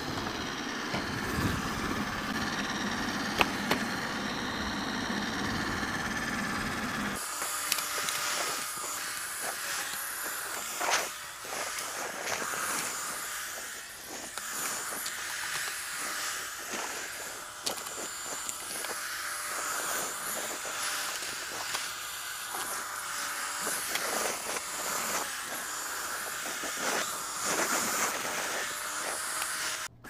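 Robot vacuum cleaner running across a wooden floor: a steady whir from its fan and spinning side brush, with scattered small clicks. A lower rumble stops about seven seconds in.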